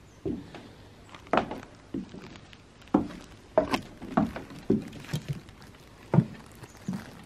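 Footsteps on a wooden deck and wooden steps: about a dozen irregular thuds and slaps, the loudest about three, three and a half, and six seconds in.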